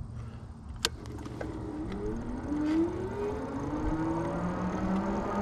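An e-bike's 500-watt electric motor whining under full throttle from a standstill with no pedaling, its pitch gliding steadily upward as the bike gathers speed, over rising tyre and wind noise. A single sharp click comes about a second in, before the whine starts.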